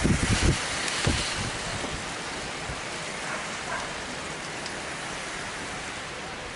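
Hail shower falling, a steady hiss, with wind buffeting the microphone in the first second or so.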